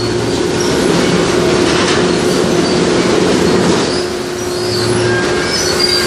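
Sawmill ring debarker and its spiked feed rollers running with a log feeding through: a continuous loud mechanical clatter and metal scraping over a steady hum, the hum growing stronger about two-thirds of the way in.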